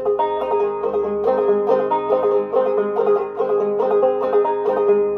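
An 1891 Fairbanks Electric banjo in gDGBD (open G) tuning, picked up-picking style: a steady run of single plucked notes at a few per second over a ringing high drone note.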